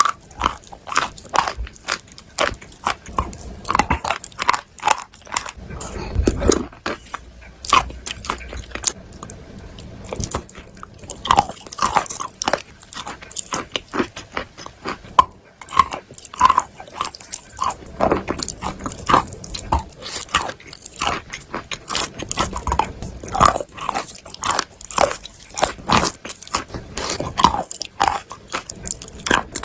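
A person biting and chewing chalk close to the microphone: a continuous run of irregular sharp crunches and chewing clicks.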